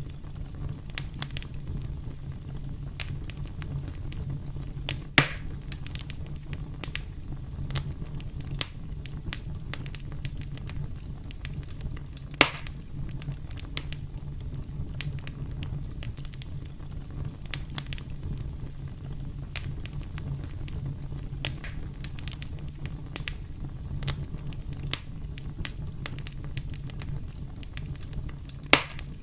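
Campfire burning with a steady low rumble and constant scattered crackles, and three louder pops from the wood: one about five seconds in, one near the middle and one near the end.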